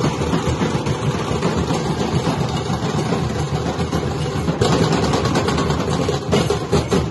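Nashik dhol drums played in a fast, continuous roll that blurs into a steady rumble. Sharper, distinct strokes stand out from about halfway through.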